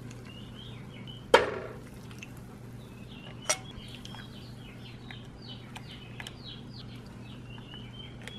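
A sharp clink of kitchenware about a second in, with a brief ring, and a lighter click about two seconds later, as custard is poured from a saucepan into ceramic ramekins. Small birds chirp throughout over a low steady hum.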